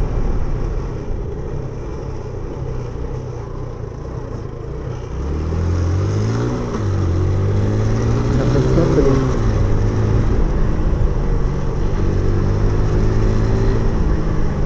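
Suzuki Intruder 125's single-cylinder four-stroke engine running under way over wind and road noise. About five seconds in it pulls up in pitch as the bike accelerates, drops back a step at a gear change, then holds a steady note as it cruises.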